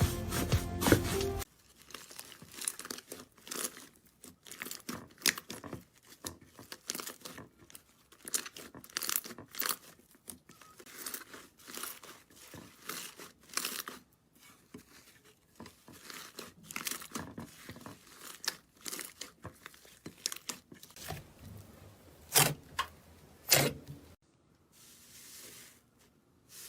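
Slime being handled: many short, irregular sticky crackles and pops as it is pressed and pulled apart. Music plays briefly at the start and cuts off about a second and a half in.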